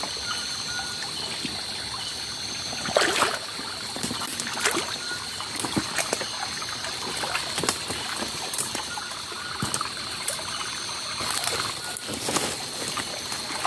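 Shallow rocky stream trickling over stones, with scattered splashes and knocks from wading and handling the hand net, one sharper knock about three seconds in.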